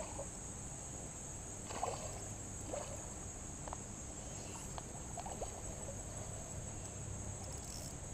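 Insects buzzing in a steady high drone, with a few faint, brief splashes from a hooked bass thrashing at the surface.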